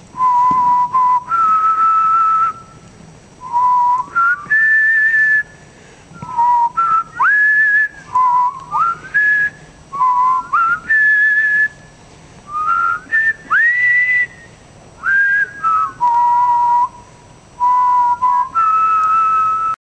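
A person whistling a slow tune: clear held notes, several of them reached with a quick upward slide, in short phrases with brief pauses between them.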